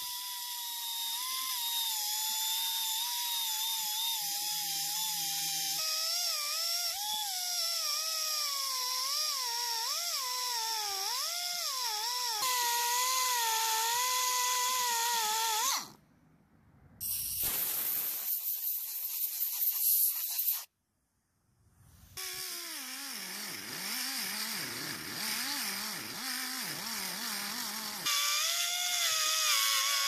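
Small handheld rotary grinder with a sanding disc whining at high speed as it grinds away the metal limiter plate around the fuel adjustment screws of a trimmer carburetor; its pitch wavers and dips as the disc bears on the metal. The sound cuts out twice briefly, about 16 and 21 seconds in.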